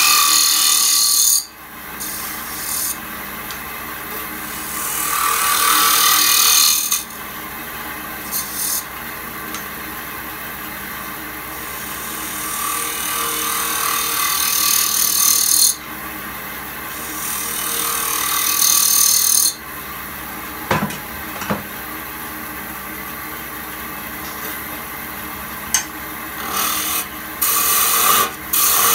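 Wood lathe running with a steady hum while a turning tool cuts the spinning goblet blank, the hiss of cutting coming and going in passes of a few seconds each. A couple of sharp knocks about two-thirds of the way through.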